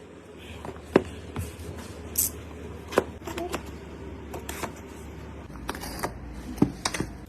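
Product packaging being handled by hand: scattered taps and clicks, with a brief scrape about two seconds in.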